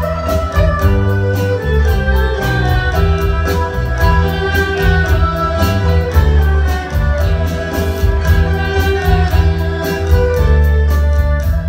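Chinese traditional ensemble led by erhu playing a Taiwanese campus folk song medley: a sustained bowed melody over held bass notes and a steady drum-kit beat.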